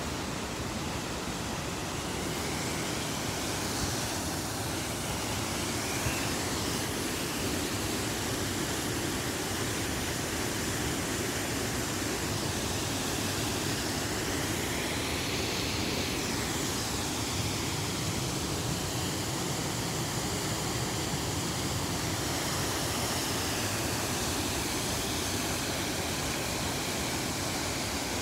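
Waterfall rushing: a steady, even noise of falling water, its tone sweeping slightly now and then.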